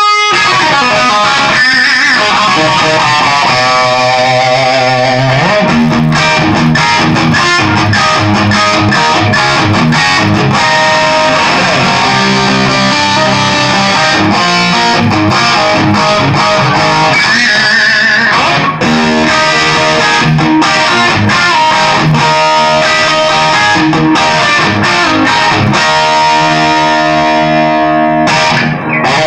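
Electric guitar, a Stratocaster with an EVH Wolfgang humbucker, played straight into an EVH 5150 III 50-watt 6L6 head on its crunch (blue) channel with the gain halfway up. The distorted tone is very close to the 'brown sound'. The playing mixes fast runs and held notes with vibrato, and ends on a long ringing chord.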